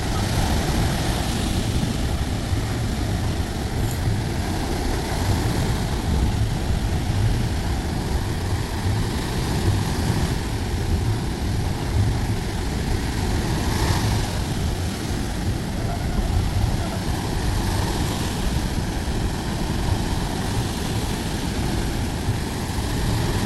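Sea surf washing onto the beach: a steady low rumble of waves, with a breaker swelling up every few seconds.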